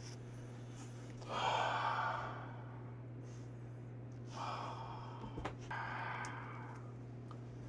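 A man breathing in and out heavily three times, the first breath the longest, as he smells a box of pungent fermented skate (hongeo). A steady low hum runs underneath.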